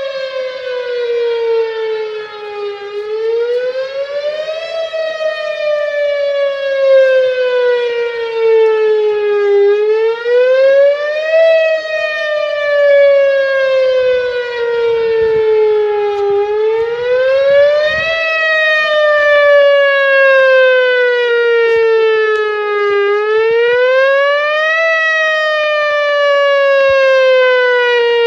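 Whelen Vortex R1 outdoor warning siren sounding its wail: one loud pitched tone that rises quickly over about two seconds, then falls slowly over about five, about four times over. The sound echoes back off a nearby building and the surrounding hollows.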